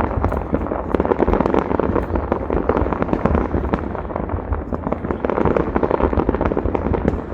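Fireworks going off in a dense, continuous barrage of rapid bangs and crackles, with no let-up.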